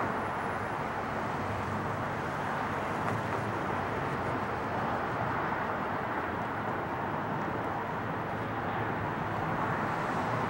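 Jet engines of an Airbus A320 climbing away after takeoff, heard from the ground as a steady, distant engine noise.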